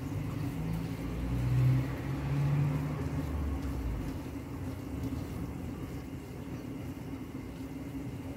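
A steady low kitchen hum, with a few louder low rumbles between about one and three seconds in, as hands rub and toss damp steamed vermicelli in a ceramic dish.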